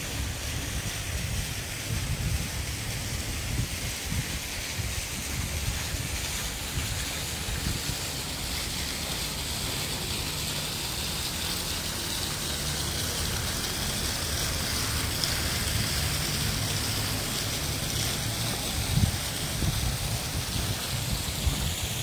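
Splashing fountain water as a steady hiss that grows a little stronger toward the middle, with wind gusting on the microphone as a low rumble underneath.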